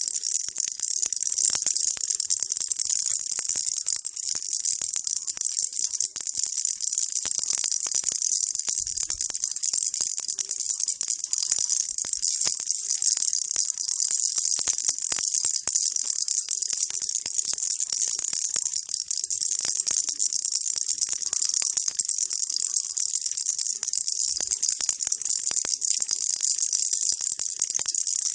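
Baby rattle shaken without pause, a dense, even rattle of small beads inside, bright and hissy, used as white noise.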